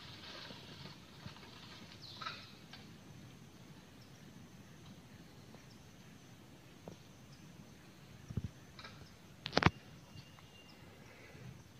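Quiet outdoor ambience under trees with a short animal or bird call about two seconds in. A couple of low thumps come a little after eight seconds, followed by a sharp knock about a second later.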